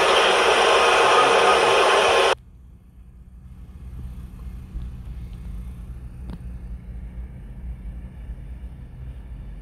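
Loud, steady hiss-like noise from played-back news footage cuts off abruptly about two seconds in as the clip is paused. It leaves a faint low rumble with a few soft taps.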